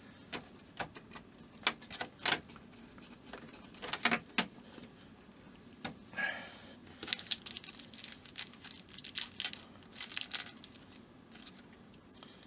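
Irregular sharp clicks and small rattles of tiny screws and plastic model-kit parts being handled and fitted, with a brief scrape about six seconds in.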